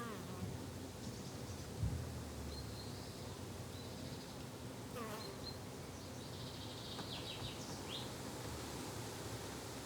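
Bees and flies buzzing steadily in a summer garden, with a few short high chirps scattered through and a brief low thump about two seconds in.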